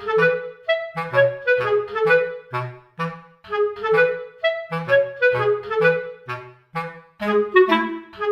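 Background music: a light, bouncy tune of short, separate notes, about two or three a second, over a plodding bass line.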